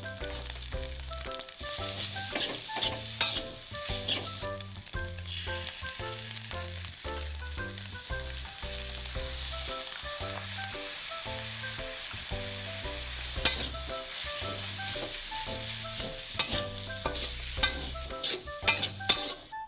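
Food frying in hot oil in a pan, a steady sizzle, with the clicks and scrapes of a utensil stirring and turning it. Soft background music with a steady bass line plays underneath.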